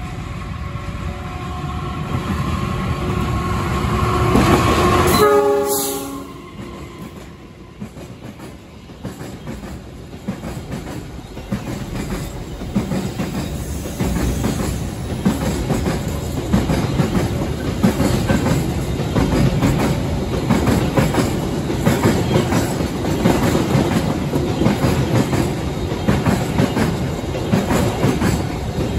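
Diesel-hauled container freight train passing. The locomotive sounds its horn as it approaches, and the horn's pitch drops sharply as it goes by about five seconds in. Then the loaded and empty flat wagons roll past with a steady clickety-clack of wheels over rail joints.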